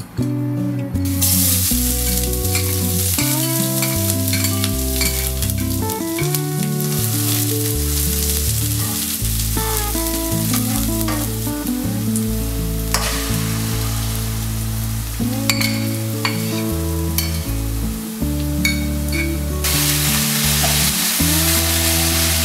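Chopped onion and carrot sizzling in hot oil in a nonstick wok, starting about a second in, while a spatula stirs them with scattered scrapes and taps on the pan.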